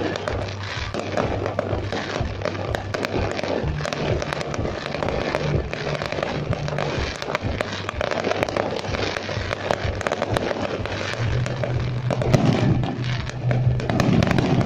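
Fireworks display crackling and popping rapidly and continuously, with thicker bursts of bangs near the end, over music playing underneath.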